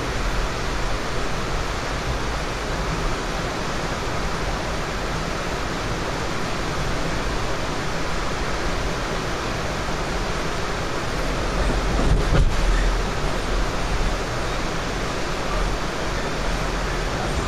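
Steady rushing ride noise of a moving Amtrak Superliner passenger train heard from inside the car, with a heavier low rumble swelling about twelve seconds in.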